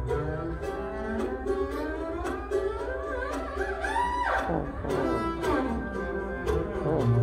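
Double bass played with a bow in its high register, climbing to a peak about four seconds in and then sliding quickly down, with a second downward slide near the end. A mandolin picks repeated notes underneath.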